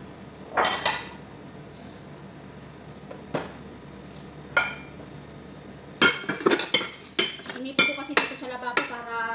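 Dishes clinking and clattering while being washed by hand in a sink: a few separate knocks in the first five seconds, then a busy run of clinks, some of them ringing, near the end.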